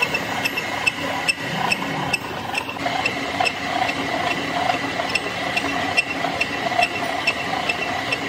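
End mill on a lathe-mounted milling head cutting a keyway slot into a large iron shaft: a steady whine with sharp ticks about two and a half times a second, the cutting noise growing a little stronger about three seconds in.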